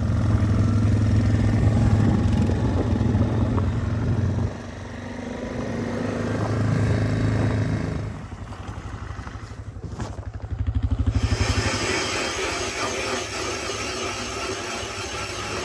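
ATV engine running as it drives across lake ice for the first half. After a cut, a motor comes in with a pulsing note and then a steady noisy run: a power ice auger drilling a test hole through the lake ice.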